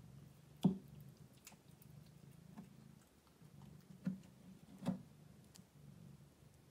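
A cat batting and chewing a purple toy against the carpeted floor of a cat-tree condo: a sharp knock under a second in and two more about four and five seconds in, with a few fainter ticks between, over a low steady hum.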